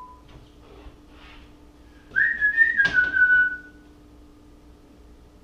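A man whistling one long note that slides up about two seconds in, then falls slowly. A click comes partway through the note, and a faint steady hum runs underneath.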